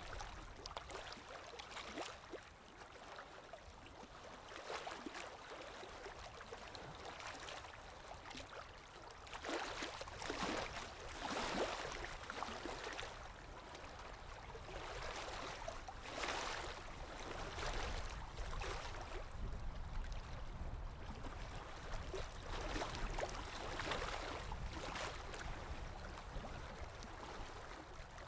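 Running water of a stream, flowing steadily with a low rumble underneath and swelling louder several times.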